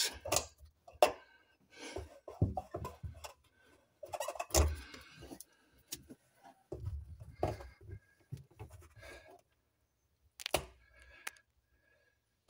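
Pliers working a plastic pipe connector free on a fuel tank: scattered clicks, knocks and short scrapes with pauses between. The pipe is a return or breather pipe on the fuel pump housing.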